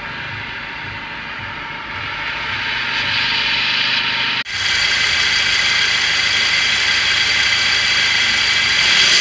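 Maruti Suzuki Vitara Brezza engine running at idle with the bonnet open. It makes an unusual noise that the owner traces to the fan belt area, not the radiator fan, which is off. The noise gets louder and brighter about two seconds in and breaks off very briefly near the middle.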